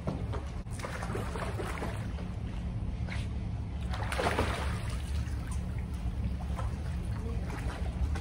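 Water splashing and sloshing in a swimming pool as a kayak paddle dips and a dog swims alongside, with the biggest splash about four seconds in. A steady low rumble of wind on the microphone runs underneath.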